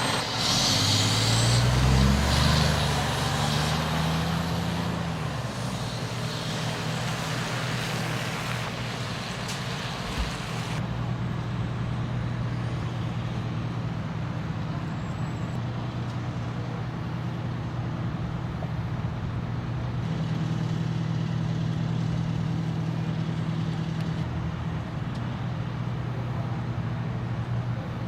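Heavy vehicle engine revving up over the first two seconds and holding, then settling back, and afterwards running steadily over constant background noise.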